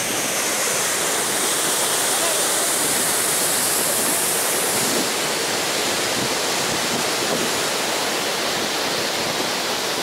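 Laxapana Falls' water rushing over the rock lip at the top of the falls: a loud, steady rush with no let-up, its highest hiss easing slightly about halfway through.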